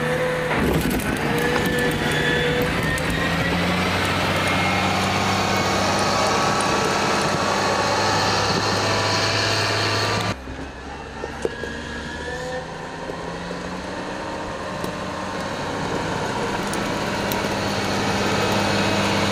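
Caterpillar motor grader's diesel engine running steadily while the machine works a snowy road. The sound breaks off abruptly about halfway through, comes back quieter, and grows louder again toward the end.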